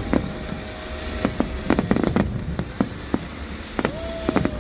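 Fireworks going off in a display: irregular sharp bangs and crackles, several per second, over a steady low rumble, with a brief whistle-like tone near the end.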